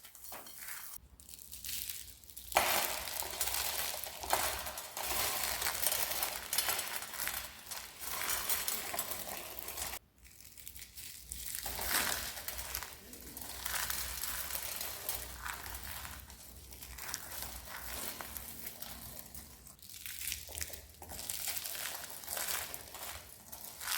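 Crispy dry soap being crushed and crumbled: a dense, crackly crunching that comes in bursts. It starts loud about two and a half seconds in and breaks off briefly about ten seconds in.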